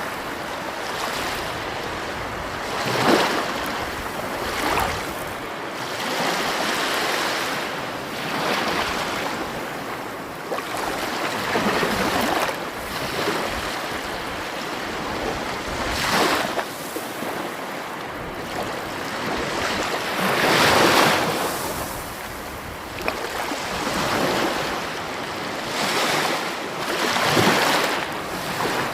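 Sea waves washing onto a shore, with louder breaks every few seconds, one of the strongest about three-quarters of the way in, over a steady hiss of surf.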